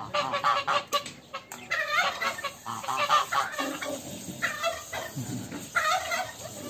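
Domestic geese honking, a run of short, harsh calls coming in several bursts.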